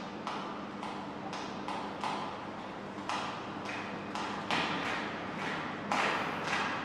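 Dry cereal poured from a box into a bowl: short rattling spills at uneven intervals, turning into a fuller, louder pour about four and a half seconds in and again near the end.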